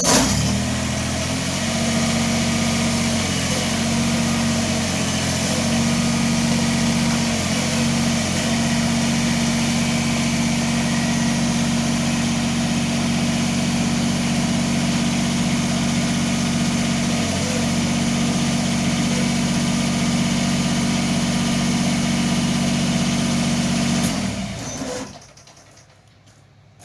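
Kubota BX sub-compact tractor's three-cylinder diesel engine starting and running steadily while the backhoe boom is raised and swung, its note dipping briefly a few times, then shut off about 24 seconds in.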